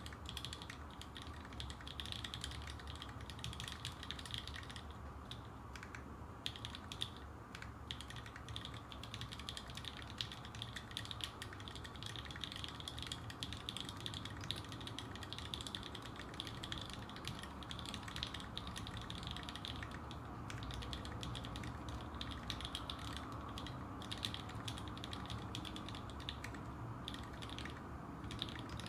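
Continuous fast typing on a custom mechanical keyboard: lubed linear Gateron Black switches on an aluminium plate in a Unikorn case, with GMK Skeletor keycaps, giving a rapid stream of clacks with no pauses.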